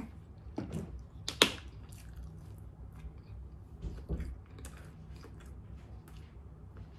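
A person biting into and chewing a mustard-covered corn dog, with wet mouth sounds and small clicks. A sharp knock about a second and a half in is the loudest sound.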